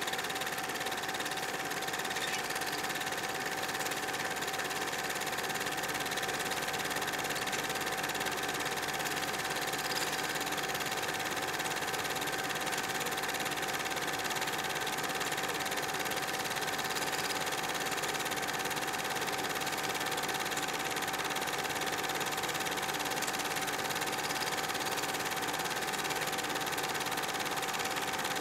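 Film projector running steadily: an even mechanical whir with a constant hum-like tone and no change throughout.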